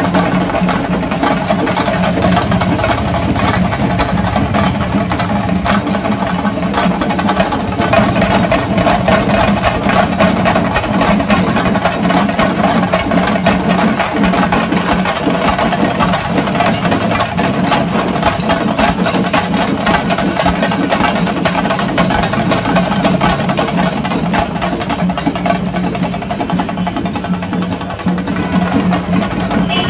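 Music: fast, continuous drumming over a steady held drone.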